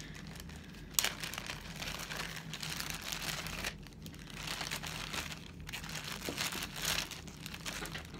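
A packaging bag crinkling and rustling in uneven bursts as a diamond-painting drill pen kit is pulled out of it, with a sharp click about a second in.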